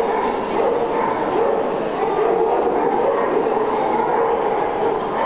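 Steady din of many dogs barking and people talking at once, with no single bark standing out.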